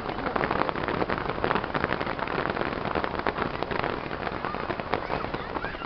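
Fireworks crackling densely: a steady stream of many small pops packed close together.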